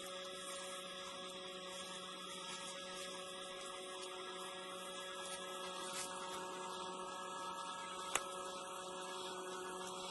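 Steady hum made of several held tones, unchanging in level, with a single sharp click about eight seconds in.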